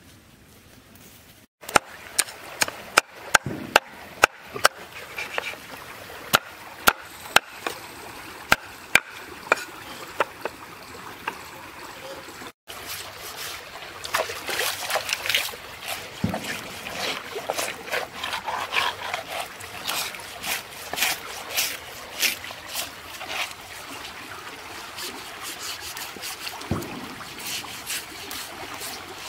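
Knife scraping the scales off a whole fresh fish on a concrete ledge: a long run of sharp scrapes and ticks, denser in the second half, with water trickling and splashing as the fish is rinsed.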